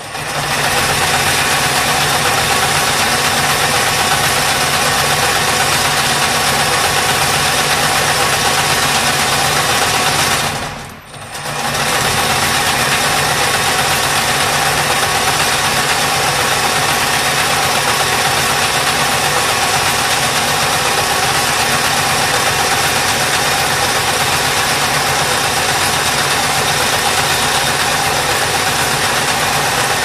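High-speed wire harness braiding machine running, its spinning bobbin carriers making a loud, steady mechanical din. The sound drops away briefly about eleven seconds in and then comes back at the same level.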